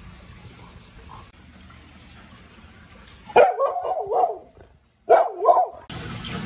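A dog barking twice, about a second and a half apart; each bark is drawn out and wavers up and down in pitch.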